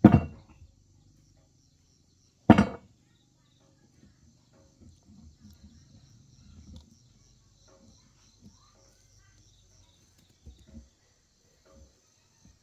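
Two loud sharp knocks about two and a half seconds apart, followed by faint scattered knocking and handling sounds. Insects, likely crickets, chirr steadily throughout.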